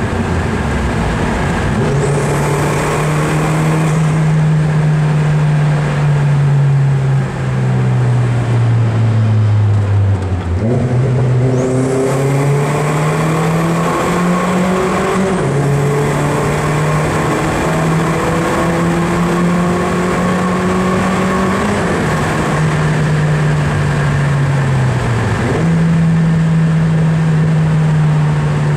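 Modified Opel Speedster Turbo's turbocharged four-cylinder engine heard from inside the cabin in a tunnel: the revs fall away for about the first ten seconds, then climb and hold under throttle, dip again and rise once more near the end. A high turbo whistle comes in each time it pulls.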